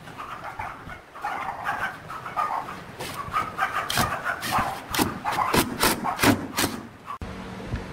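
Cordless Makita driver driving screws into pine boards, running in short uneven spurts with the screw grinding into the wood and sharp knocks and clicks scattered through.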